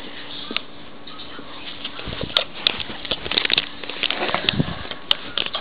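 Handling noise on the camera body: irregular clicks, scrapes and knocks starting about two seconds in, as the camera is knocked about close to the microphone.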